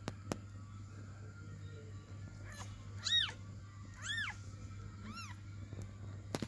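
Newborn kitten mewing: three short, high-pitched mews about a second apart, each rising and then falling in pitch, starting about three seconds in.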